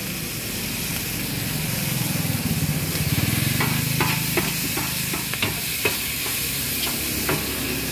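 Noodles sizzling in a large steel wok as they are stir-fried, with a metal ladle clinking and scraping against the wok several times in the second half. A steady low hum runs underneath.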